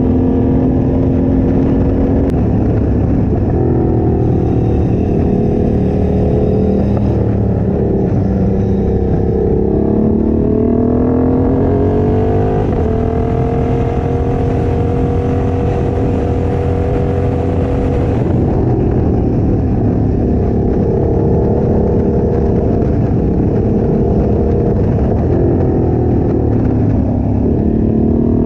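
Motorcycle engine running under way, its note rising and falling again and again with throttle and gear changes, over a steady rush of wind on the microphone.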